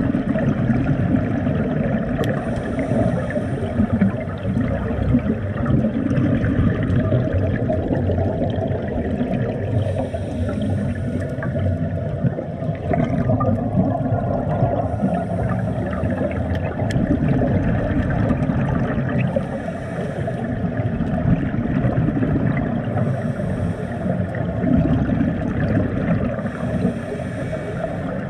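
Water noise muffled by a GoPro's waterproof housing during a scuba dive, steady and heaviest in the low range, with a faint hiss coming back about every four to five seconds.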